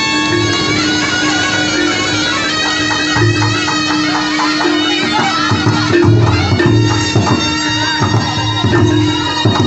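Live jaranan music: a reedy double-reed slompret (shawm) playing a melody over a steady held drone, with drum strokes coming in more densely in the second half.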